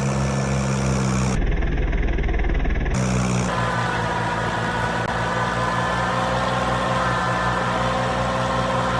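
Combine harvester's diesel engine running steadily, with the sound changing abruptly about a second and a half in and again at three seconds.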